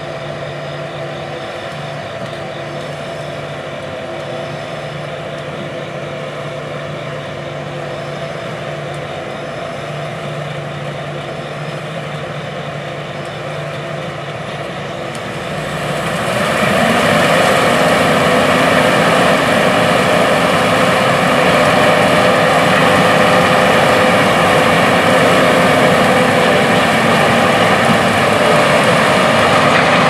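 John Deere S790 combines' diesel engines running steadily; about halfway through the engine sound rises and grows clearly louder as the combines throttle up and one drives past.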